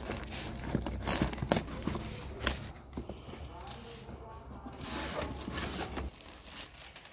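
Scissors cutting the packing tape on a cardboard carton, then the cardboard flaps pulled open and plastic packets of instant noodles rustling, with scattered clicks and knocks.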